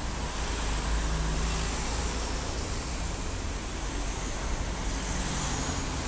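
Steady city road-traffic noise: an even rumble with a faint low engine hum in it.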